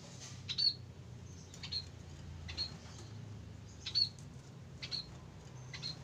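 Caged munias giving short, high chirps, about six of them roughly a second apart.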